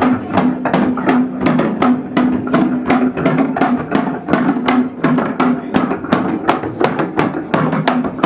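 Improvised noise music: rapid, irregular knocking and tapping on objects, several strikes a second, over a steady low drone.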